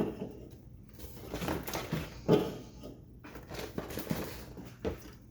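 Aluminium seltzer cans being taken out of a cardboard box and set down on a hard surface: a few sharp knocks and light clinks over cardboard rustling.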